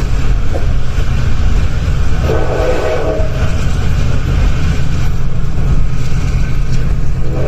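Loud, steady low rumble of a diesel-hauled passenger train running at speed. A train horn sounds for about a second a couple of seconds in, and again near the end.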